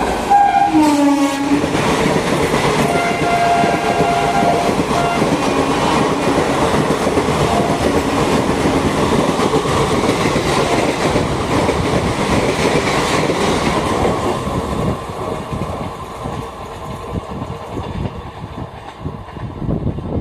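A passenger train passing close by: a locomotive horn sounds about a second in, its pitch dropping as it goes past. Then the coaches rush by with wheel clatter on the track, the noise fading over the last several seconds.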